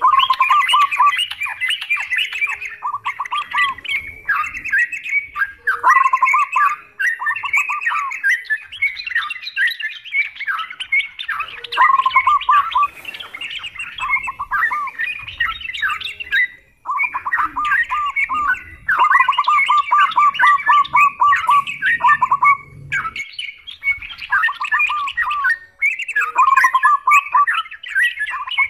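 Yellow-vented bulbuls (trucukan) singing and chattering in a busy, overlapping chorus. Bubbly warbled phrases mix with quick runs of repeated notes, broken now and then by short pauses.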